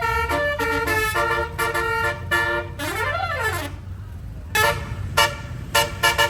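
Bus telolet horn, a set of many air-horn trumpets, playing a quick melody of short notes. About three seconds in it makes one rising-and-falling swoop, pauses briefly, then goes on with more short toots, over a steady low rumble from the bus.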